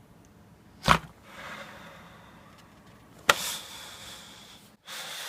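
Two sharp, loud knocks about two and a half seconds apart, each followed by about a second of hissing noise, then another burst of hiss that starts abruptly near the end.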